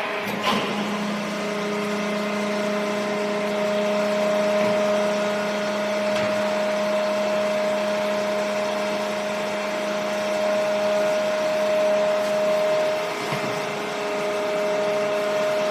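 Hydraulic power unit of a 100-ton tyre baler running steadily, a motor-and-pump hum made of several steady tones; the lowest tone fades out about 13 seconds in.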